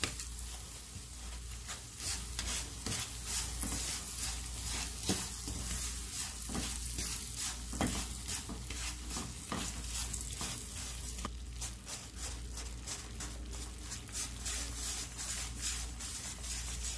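Jaggery melting in ghee in a nonstick pan on low heat, sizzling and crackling while a wooden spatula stirs and scrapes it round the pan.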